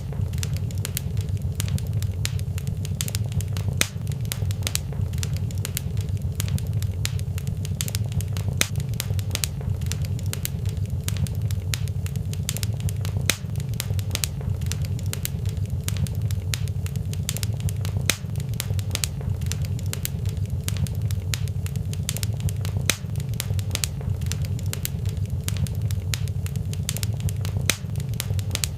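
Fire burning in a fireplace, crackling with many quick, irregular snaps and pops over a steady low rumble.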